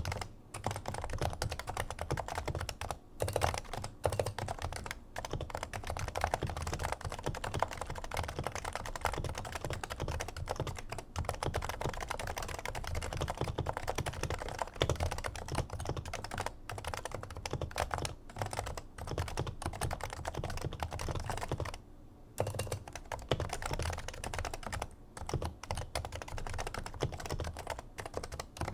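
Continuous fast typing on a Topre Realforce R2 keyboard with 55 g factory-silenced Topre switches, stock: dense, deep, muted keystrokes with brief pauses, the longest about 22 seconds in.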